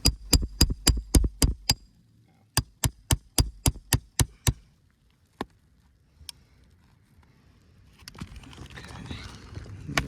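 Roofing hammer striking a nail puller to work out the last roofing nail under a three-tab asphalt shingle: two quick runs of sharp metal taps, about four a second, then two single taps.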